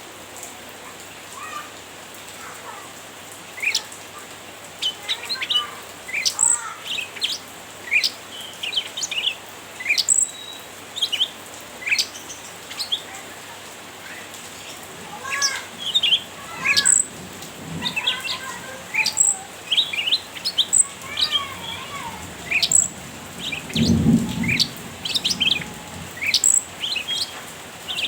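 Cucak ranting bulbul calling: a steady stream of short, sharp chirps and chattering notes, some very high. About twenty-four seconds in there is a brief low rumble.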